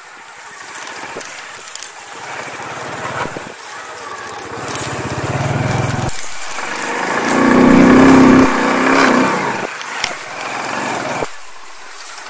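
Alpha moped's small single-cylinder four-stroke engine running under way, the revs rising and falling with the throttle and loudest about eight seconds in.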